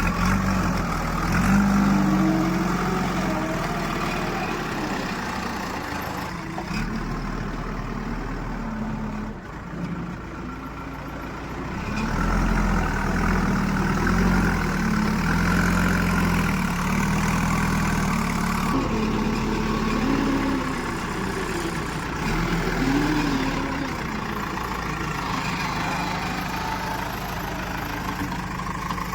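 Heavy diesel engines of a backhoe loader and tractor running, the engine note rising and falling as they are revved under load. The sound dips about a third of the way through and comes back stronger.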